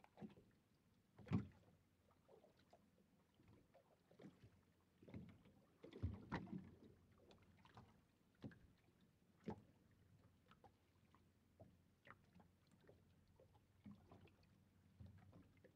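Faint, irregular knocks and taps aboard a small fishing boat, the loudest about a second in and a cluster around six seconds in.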